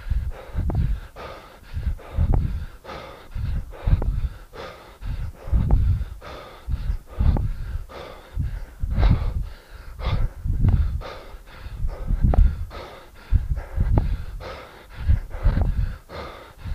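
A man breathing hard and rhythmically while swinging a kettlebell, with a forceful breath on each swing about every second and a half to two seconds and a weaker breath between.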